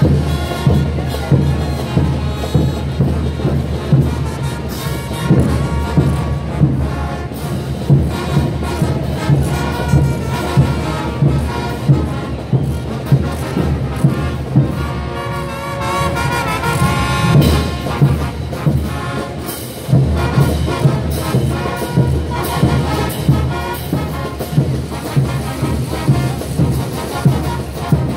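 Bolivian brass band playing a morenada: a brass melody over a steady drum beat, about two beats a second.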